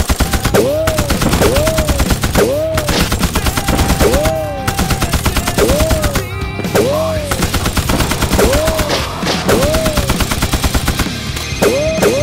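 Rapid automatic gunfire sound effects, a continuous stream of shots, with a short rising-and-falling whine repeating about every second.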